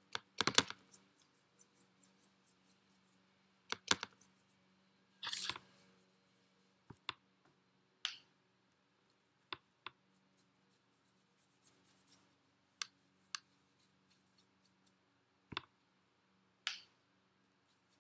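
Paintbrush tapping in a plastic watercolour paint tray and brushing across paper: scattered short clicks and a few brief scratchy strokes.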